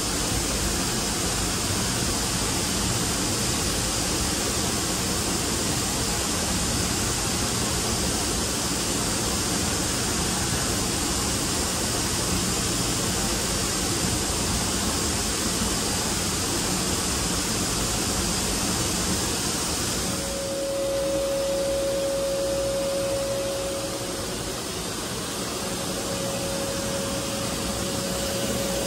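Haas VF-4 vertical machining center running, a steady even rushing noise. About twenty seconds in the rushing eases and a steady single-pitched whine comes in; it stops briefly and then returns.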